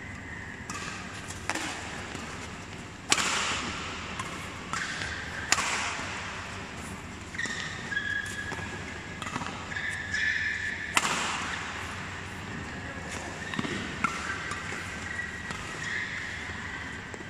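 Badminton doubles rally: rackets striking the shuttlecock in sharp cracks every second or so, echoing in the hall, with short squeaks of players' shoes on the court floor between the hits.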